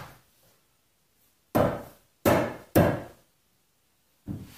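Three sharp wooden knocks in quick succession about a second and a half in, with a softer one near the end. This is a log rail being knocked down onto the spindles of a log bed footboard to seat them in its drilled holes.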